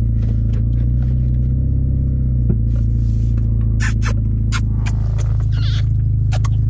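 Chevy Malibu running down the road, heard from inside the cabin: a steady low engine and road drone, with a few sharp clicks or rattles about four seconds in and again near the end.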